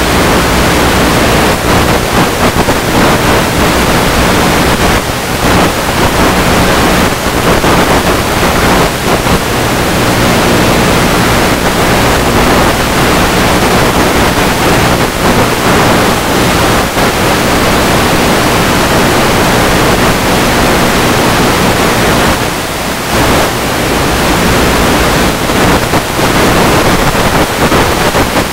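Steady loud rushing noise with a constant low hum under it, from the airborne Multiplex EasyStar 2 RC plane: airflow and its electric pusher motor running at cruise. The rush dips briefly a few times.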